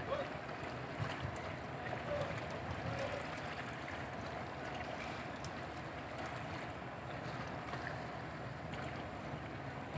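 Steady harbour ambience: wind and water with a faint, steady low hum underneath, and a few small knocks.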